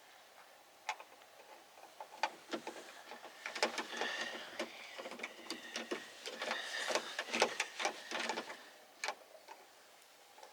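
Hand work on the exterior door handle's mounting inside a pickup truck door: small irregular clicks, taps and scrapes as a nut is worked onto the handle's stud through an access hole.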